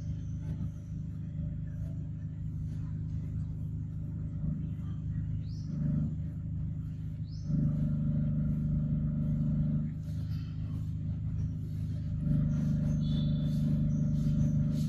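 A steady low motor hum, like an engine running nearby, that grows louder for a few seconds about halfway through and again near the end. Faint short high chirps sound over it now and then.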